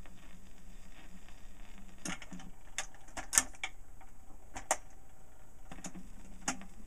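Automatic record changer on a portable record player cycling between 78 rpm records: a string of mechanical clicks and clunks as the tonearm lifts, swings across and sets down on the edge of the record, the sharpest click about midway. A steady low hum runs underneath.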